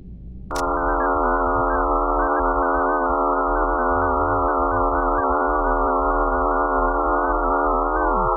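An eerie electronic drone of many steady, layered tones, presented as the sound of Mars's moon Phobos. It starts with a click about half a second in, and near the end a few of the tones slide down in pitch.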